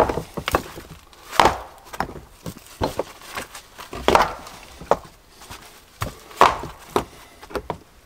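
Wood being struck over and over: a dozen or so sharp, irregular knocks and chops, the heaviest coming roughly every two seconds with lighter taps between.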